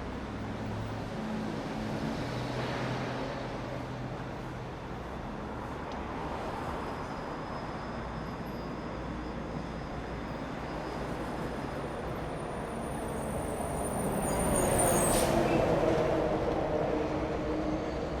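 Steady city street traffic with vehicles passing. A heavy vehicle's engine comes through louder about three-quarters of the way in, with a sharp knock as it goes by.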